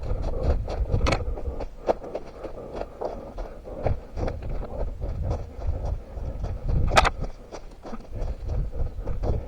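A runner's footsteps on forest ground, heard from a head-mounted camera: quick, even footfalls at about three a second over a low rumble. Two sharper cracks stand out, about a second in and about two-thirds of the way through.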